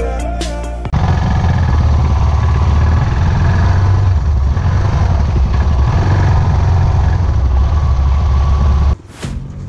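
Royal Enfield Himalayan's single-cylinder engine running steadily as the motorcycle rides along, mixed with wind rumble on the microphone; it starts abruptly about a second in, right after the end of some music, and cuts off suddenly near the end.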